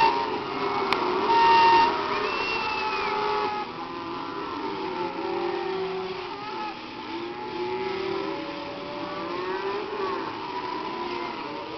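Herd of cattle lowing, many overlapping drawn-out calls rising and falling in pitch, with a louder call about a second in.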